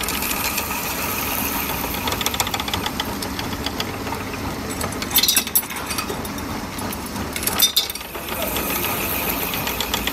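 Bolt-threading machine running, its rotating spindle cutting a thread onto a steel bolt held in a jig, with a steady motor and cutting noise. Two short bursts of metallic clattering, about halfway through and again later.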